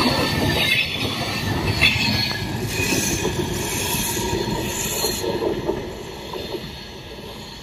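Wheels of a passenger train's LHB coaches running over the rails as the last coach passes close and pulls away, with a high-pitched squeal in the middle. The rumble fades over the last couple of seconds as the train recedes.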